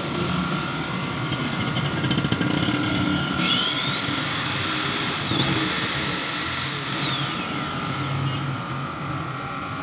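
Electric angle grinder briefly run as a test: a whine rising as the motor spins up about three seconds in, dipping once, then falling away as it coasts down a few seconds later, over steady background noise.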